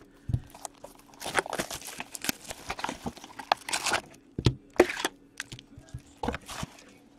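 A cardboard hockey card box being cut open with a box cutter and unpacked: a few seconds of scraping and rustling of cardboard and wrapping, then several knocks as the box is handled and tipped.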